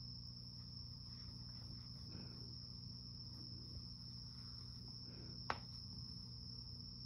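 Quiet room tone: a steady high-pitched whine over a low hum, with one soft click about five and a half seconds in.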